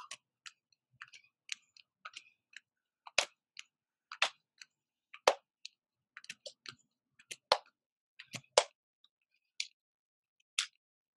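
Sharp taps and clicks from a person doing jumping jacks on an exercise mat. The louder ones come about once a second, with fainter ticks between them.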